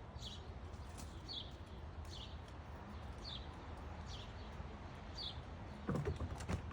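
A bird repeating a short, high chirp about once a second over a faint low background rumble. A few knocks and rustles come near the end.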